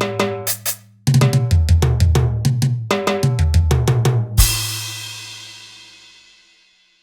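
Roland SPD-30 Octapad playing drum-kit preset samples: two short fills of kick, snare and pitched tom hits with a brief gap between them, the second ending on a crash cymbal that rings out and fades away.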